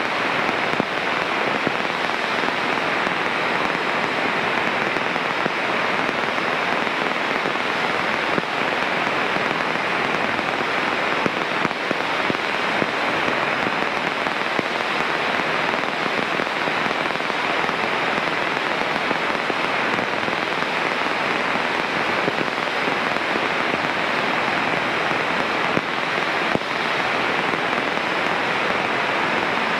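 Steady, even hiss of radio static in the aviation headset audio, with no engine tones showing through.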